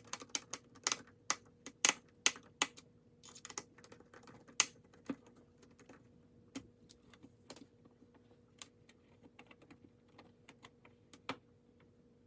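Irregular sharp clicks and taps of a ThinkPad T41 laptop's plastic parts and small tools being handled during repair, many in the first few seconds and sparser later.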